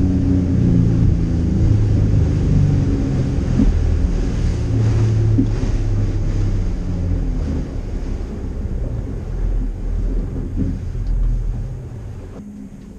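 Boat engine running steadily at speed, heard from inside the cabin, with water rushing along the hull. Near the end it is throttled back and the sound falls away.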